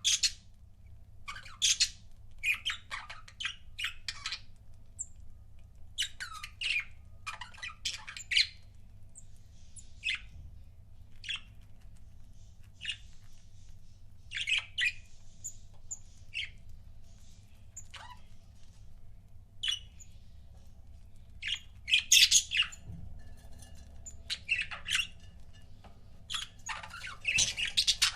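Pet budgerigars chirping and squawking in short, scattered calls, with busier flurries in the first few seconds and again near the end.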